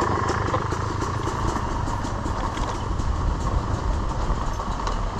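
KX100 dirt bike on a rough trail: a steady, rough rumble with scattered knocks and rattles.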